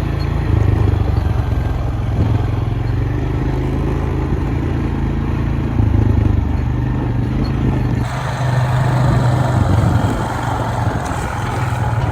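A vehicle engine running steadily at a constant speed, with an abrupt change in the sound about eight seconds in.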